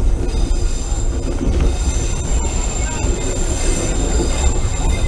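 Passenger train rolling through a curve, heard from inside a coach at the window: a low rumble of wheels on the rails under a steady high-pitched squeal of steel wheels grinding against the curved track, which grows stronger about two seconds in.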